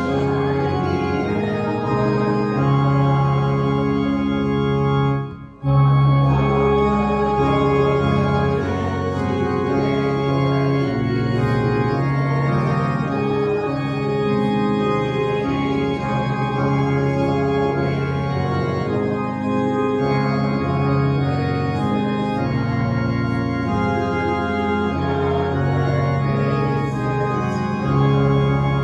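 Organ playing held chords, breaking off for a moment about five and a half seconds in and then going on.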